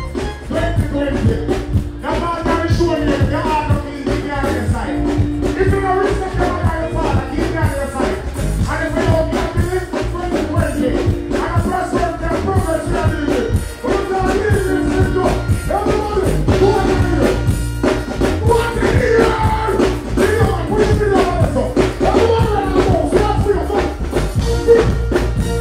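Live reggae music: a male singer sings into a microphone over a heavy bass-driven backing track played through the stage sound system.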